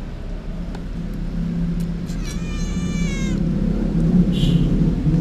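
A steady low hum that slowly grows louder, with a high, slightly wavering cry lasting about a second in the middle, and a short faint hiss a little later.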